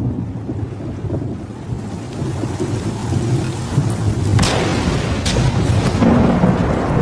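Thunderstorm sound effects: a steady low rumble of thunder with rain, swelling suddenly about four and a half seconds in with sharp cracks of thunder.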